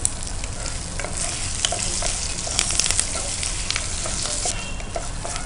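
A tempering of mustard seeds, cumin, chana dal, peanuts, cashews, chillies, curry leaves and chopped ginger sizzling in hot ghee in a non-stick kadai, stirred with a spatula, with scattered clicks from the spatula and popping seeds.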